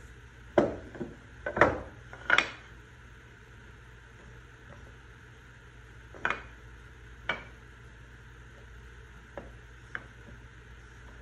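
Cut hardwood pieces of padauk and purpleheart knocking and sliding on a metal saw table as they are fitted together by hand. There is a quick run of sharp wooden clacks in the first few seconds, then a few scattered single knocks, over a faint low hum.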